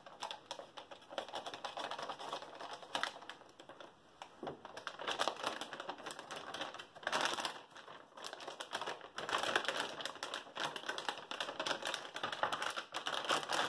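Metallized anti-static bag crinkling and crackling as it is pulled open and crumpled by hand: a dense run of quick crackles, coming in irregular louder bursts.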